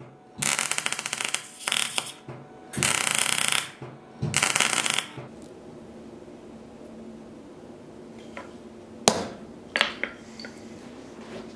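Arc welding in three crackling bursts of about a second each, with short pauses between. Later, after some seconds of quiet, there is one sharp metallic tap and a couple of lighter clicks from steel tools handled on an anvil.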